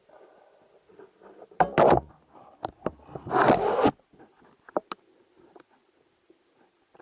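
Rubbing and scraping handling noises with scattered clicks, and two loud rushing bursts, the second and longer one about three seconds in.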